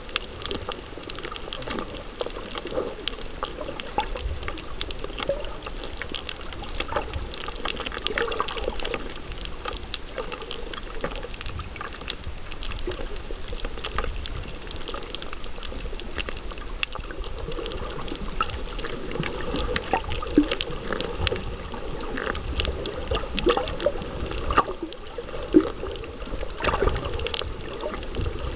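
Underwater sound picked up by a submerged camera over a coral reef: a steady wash of water noise dotted with many small crackles and clicks, with a few louder clicks in the second half.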